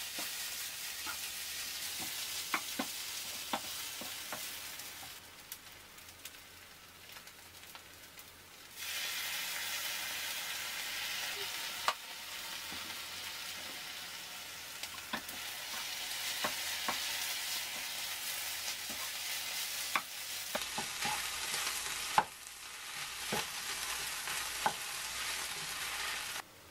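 Kimchi fried rice with Spam sizzling in a frying pan over a gas flame while a wooden spatula stirs and scrapes it, with scattered knocks of the spatula against the pan. The sizzle drops quieter from about five seconds in, then comes back louder about nine seconds in.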